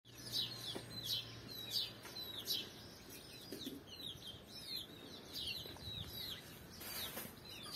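Chicks peeping: a steady run of short, high, falling peeps, about one and a half a second.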